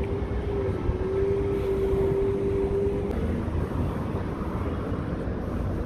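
Street traffic noise from passing cars, a steady rumble, with a steady hum for about the first three seconds.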